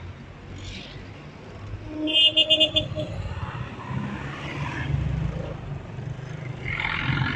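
Street traffic: the low, steady running of passing vehicle engines, among them a motorcycle and a diesel dump truck going by close. About two seconds in comes a brief, loud, high-pitched pulsing beep, the loudest sound.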